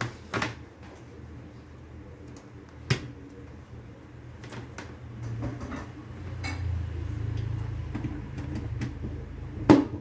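Handling noise from a vacuum cleaner's power cord and plug: scattered sharp plastic clicks and knocks over a low rumble that swells in the middle, with the loudest click near the end. The vacuum's motor is not running.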